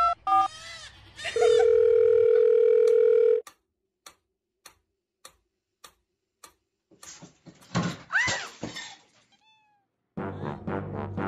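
Telephone keypad beeps, then a steady dial tone for about two seconds. A series of faint clicks and a cat's meow follow, and background music starts near the end.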